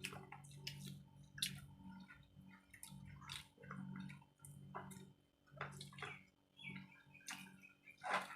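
Wet chewing and lip-smacking of people eating rice and curry, a scatter of short irregular smacks and clicks at a low level.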